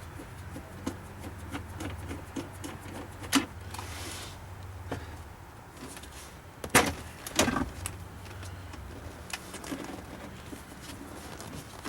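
The underdash trim panel of a Mercedes W123 being unscrewed and pulled free by hand: scattered light clicks and rattles, then a few loud sharp clacks a little past halfway as the panel comes out.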